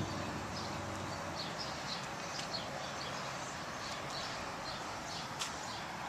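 Footsteps on concrete pavement, faint regular shoe clicks about two or three a second, over a steady outdoor background hiss.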